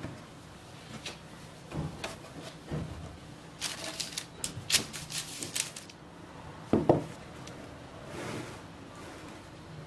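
Soft dough balls being lifted off a floured wooden board and set down on a parchment-lined metal baking tray: scattered light taps and rubs, a run of sharp clicks and rustles in the middle, and one louder knock about seven seconds in.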